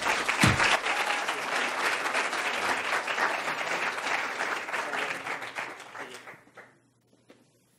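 Audience applauding, starting at once and dying away about six seconds in. A low thump about half a second in.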